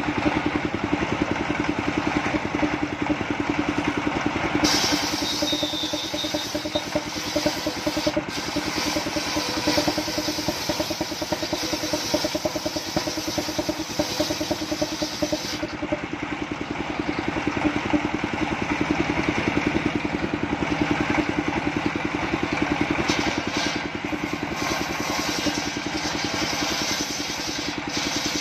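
Engine-driven circular sawmill running steadily as a coconut-trunk beam is fed through the blade. A brighter cutting hiss joins from about five seconds in until about sixteen seconds in.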